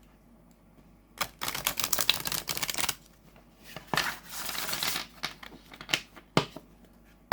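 A deck of oracle cards being shuffled by hand: a fast patter of card edges, then a sliding rustle about four seconds in, and a few separate clicks as the cards are squared up.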